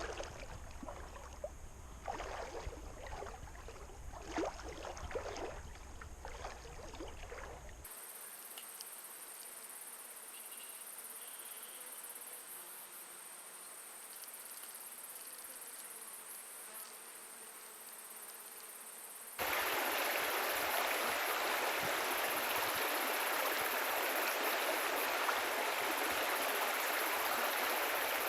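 Irregular splashing of river water as a person wades through it for the first several seconds. After a cut comes a quieter steady hiss, and then, from about two-thirds of the way through, the louder steady rush of a flowing river.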